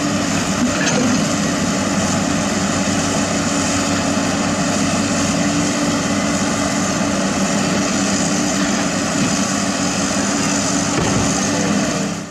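Komatsu PC200 hydraulic excavator's diesel engine running steadily as it digs, a constant drone.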